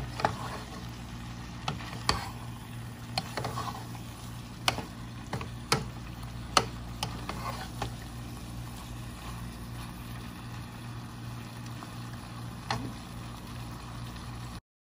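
Wooden spatula stirring shrimp and vegetables in a metal pot, with irregular sharp knocks of the spatula against the pot, most of them in the first half, over a faint sizzle and a steady low hum. The sound cuts off suddenly near the end.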